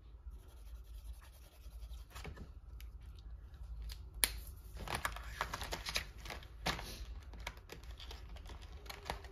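Faint scratching and small clicks of dual-tip brush markers being handled and pulled from their plastic case, with one sharp click a little after four seconds in.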